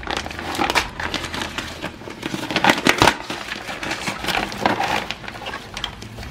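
Clear plastic packaging bag crinkling and rustling in irregular bursts as hands work it open around the plastic toys inside, loudest about three seconds in.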